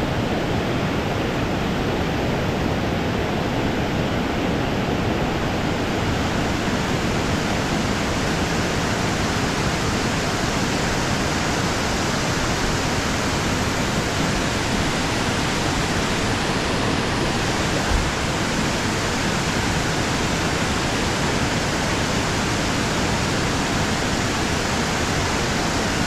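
Creek water rushing steadily, with one brief low bump about 18 seconds in.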